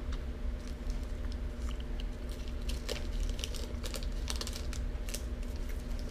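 Chocolate bar's foil-lined wrapper crinkling as it is folded in the hands, a run of irregular sharp crackles that is thickest in the middle, with chewing.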